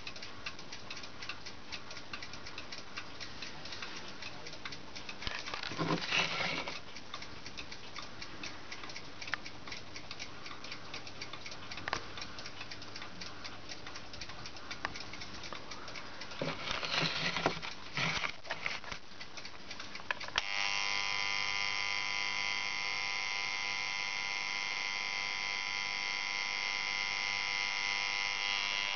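Staiger electric alarm clock ticking, with two short stretches of handling noise as the clock is turned over. About 20 seconds in, its alarm starts: a loud, steady electric buzz.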